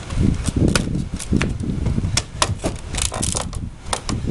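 A pallet deck board held by two screws being pried up with a lever-type pallet ripper: a quick, irregular run of clicks, creaks and knocks of wood and metal.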